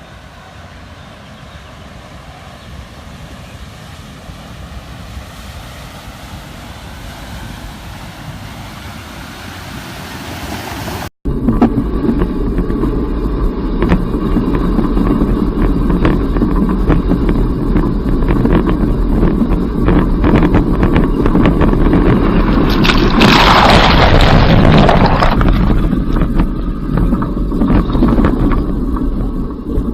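Toyota Land Cruiser Prado 120 fording a river: a steady engine with rushing and splashing water, heard up close from the front of the vehicle. The sound is fainter and slowly building at first, then jumps abruptly much louder about eleven seconds in. The heaviest splash of water comes about two-thirds of the way through.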